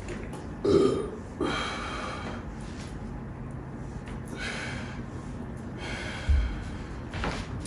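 Hard breathing of a person working through a kettlebell leg-raise set, a forceful breath through the nose every two to three seconds. Two dull thumps, one about a second in and one near the end, are the loudest sounds.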